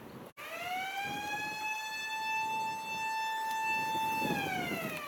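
Blast warning siren sounded before a rock blast is fired: one long wail that rises in pitch over about a second, holds steady, then winds down near the end.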